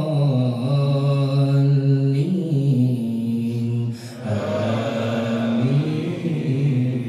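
A male imam chanting Quran recitation in Arabic in a melodic tajweed style, with long held notes and a short pause for breath about four seconds in.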